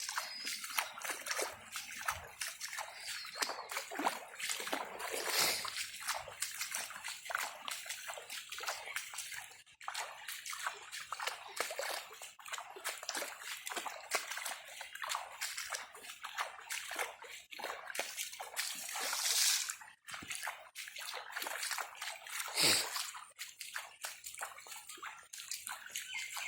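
Floodwater sloshing and splashing in a steady run of irregular strokes, with a few louder splashes along the way.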